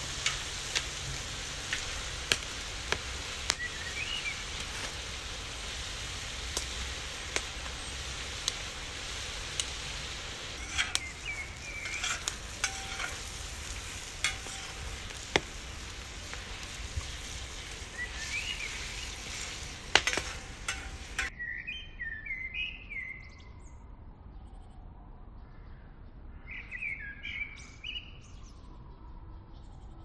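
Meat and vegetables sizzling on a hot saj, a steady hiss with scattered sharp pops, while songbirds chirp now and then. About two-thirds of the way through, the sizzling cuts off abruptly and only birdsong is left.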